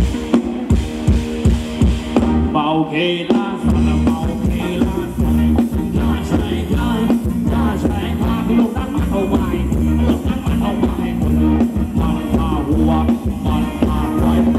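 Live band playing Thai ramwong dance music over a PA, with a steady drum beat about twice a second and a heavy bass line that comes in about four seconds in.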